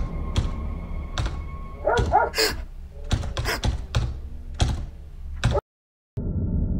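A door's deadbolt and lever handle rattling and clicking as the lock is worked, a string of sharp metallic clicks and knocks. A dog barks twice about two seconds in. Near the end the sound cuts out briefly and a faint steady hum follows.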